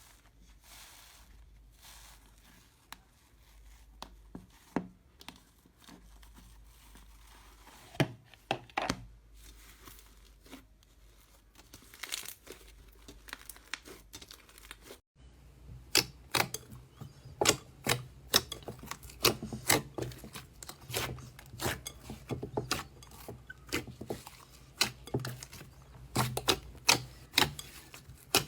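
Slime being squeezed and stretched by hand, giving crackling clicks and pops: sparse and soft at first, then after an abrupt cut about halfway through, a quicker run of louder pops.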